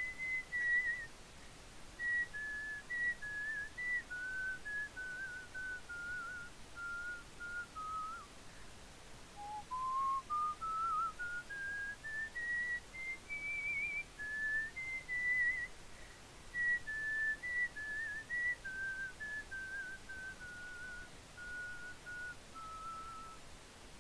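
A person whistling a slow tune, one note at a time. The melody steps downward, breaks off briefly about eight seconds in, climbs from a low note back up to its highest note around fourteen seconds, then steps down again to the end.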